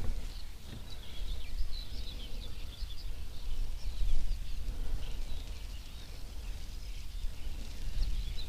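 Small birds chirping and singing, many short high notes, over a steady low rumble of wind on the action camera's microphone.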